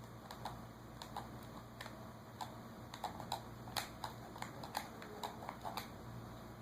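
An irregular series of light clicks, busiest in the middle, over a steady low hum.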